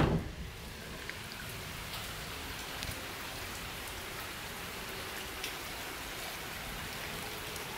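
Steady rain falling: an even hiss with a few scattered drop ticks.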